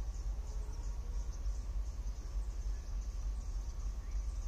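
Insects trilling in a rapid, pulsing high chorus from the surrounding forest, over a steady low rumble.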